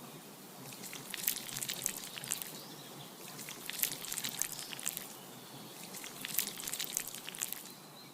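Light, sharp clicks and scratchy scrapes in three loose bursts, with short pauses between them.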